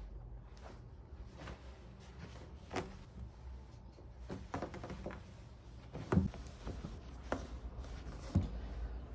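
A large piece of stiff white fabric being lifted, flipped and smoothed flat on a table, rustling as it is handled, with a few soft knocks against the table, the loudest about six seconds in.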